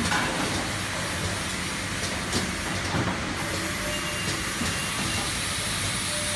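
Triangle nylon tea bag packing machine running: steady mechanical noise with irregular sharp clicks from its moving parts.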